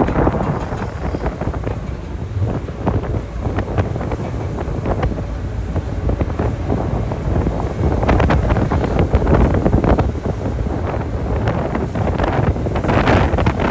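Strong wind buffeting the microphone on the deck of a car ferry in rough seas, over a low rumble from the ship and sea. The gusts grow louder about eight seconds in and again near the end.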